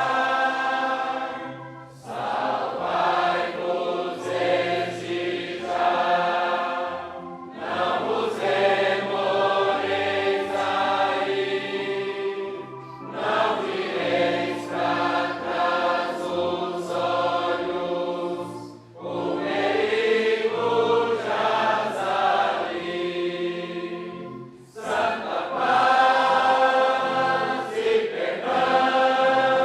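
A choir singing a Portuguese-language gospel hymn in slow, sustained phrases, with a short break for breath about every five to six seconds.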